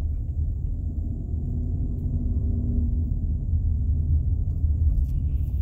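Steady low rumble of a car's engine and tyres heard from inside the cabin while driving slowly.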